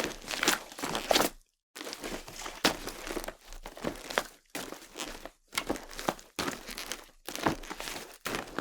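Footsteps crunching over a loose, crackly surface, one step after another, broken by a few brief dead-silent gaps.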